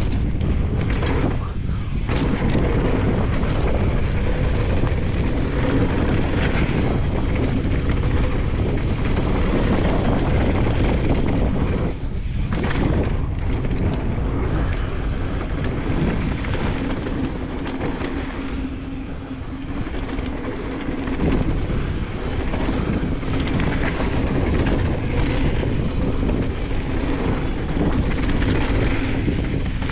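Mountain bike descending a dirt flow trail at speed: wind buffeting the GoPro microphone over the rumble of tyres on dirt, with scattered clicks and rattles from the bike. The rush eases for a few seconds past the middle, then picks up again.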